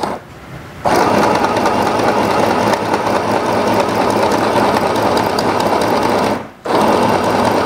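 Mini portable 505 electric sewing machine running, sewing a straight stitch through cotton fabric. It starts about a second in, stops briefly near six and a half seconds, and starts again.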